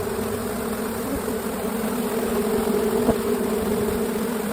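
Swarm of honeybees buzzing close by: a steady hum of many wings, with a brief tap about three seconds in.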